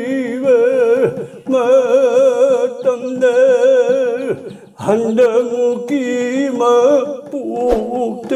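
An elderly man singing unaccompanied, a Manipuri nata sankirtan chant in long held notes with a strong wavering vibrato. He sings three phrases with short breaths between them.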